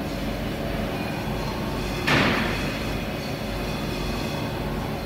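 Mazak SQT-250 MSY CNC lathe running with a steady hum. About two seconds in there is a sudden, loud mechanical clunk with a rushing noise that dies away within half a second.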